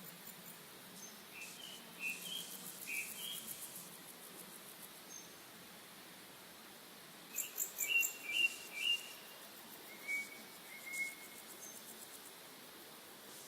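Birds chirping in short, high calls, in two bursts (a few seconds in, and again near the middle) with a couple of later single calls, over a faint high insect buzzing.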